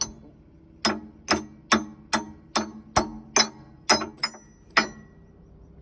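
Hammer striking steel while fitting an excavator bucket tooth cap onto its shank: about ten ringing metal blows, a little over two a second, ending about five seconds in.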